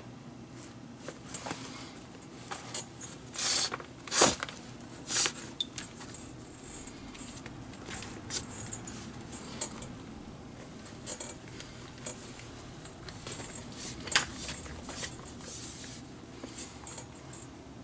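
Red leather glove lace being pulled through the lacing holes of a Mizuno baseball glove's trap-eze web with a lacing needle: scattered short rasps and scrapes of lace sliding on leather, with a sharper snap about four seconds in.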